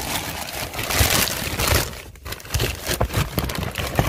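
Plastic packaging bags crinkling and rustling as a hand rummages through them, with a brief lull about two seconds in.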